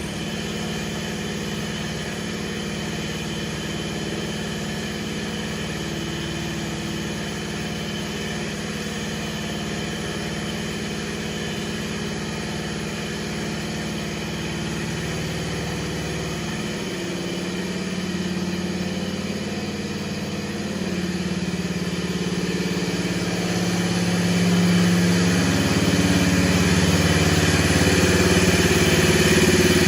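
1970 garden tractor's engine running steadily at idle. Just past halfway its tone changes, and over the last third it gets louder.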